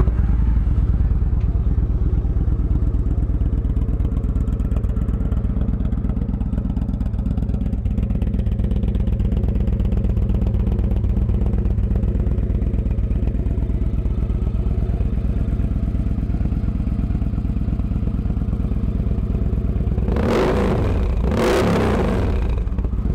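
A Victory 106-cubic-inch fuel-injected, air- and oil-cooled V-twin running steadily at idle through an aftermarket Bassani 2-into-1 exhaust. Two brief, louder bursts come near the end.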